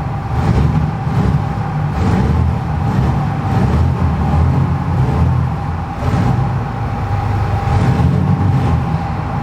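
Car sound system with Triton speakers playing music very loud, dominated by heavy, pulsing bass with a steady high note held over it.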